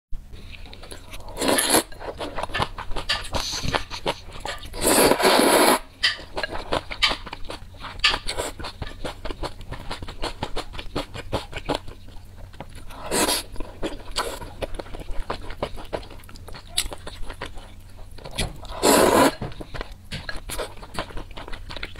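Close-miked eating of spicy glass-noodle soup: four loud noodle slurps, the longest about five seconds in, with wet chewing and mouth clicks in between.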